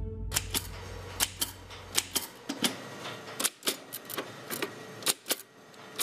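Typewriter typing: a run of sharp key strikes at an uneven pace of about three a second.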